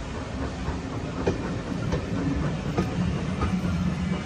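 Railway passenger carriages rolling slowly past close by: a steady low rumble of wheels on rail, with a few sharp clicks as the wheels cross rail joints.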